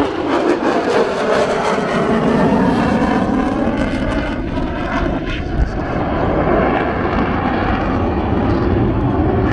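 Fighter jet flying past, its engine loud and continuous, the pitch sliding down over the first few seconds as it goes by and then holding steady as it moves away.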